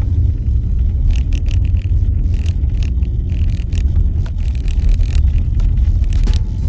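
Car driving on a snow-covered road, heard from inside the cabin: a steady, loud low rumble of tyres and engine, with scattered light ticks and clatters.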